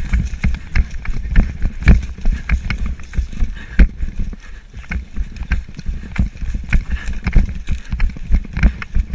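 Running footsteps: heavy, fast strides over wood chips and dry leaf litter, thudding about two to three times a second close to the microphone.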